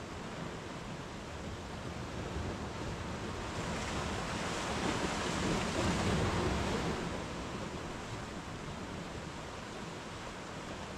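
Sea surf breaking and washing up a sandy beach and over rocks, a steady wash that swells to one louder wave about halfway through and then eases back.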